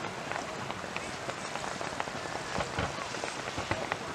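Fireworks crackling: a dense, rain-like hiss of many small pops and crackles, with scattered louder pops through it.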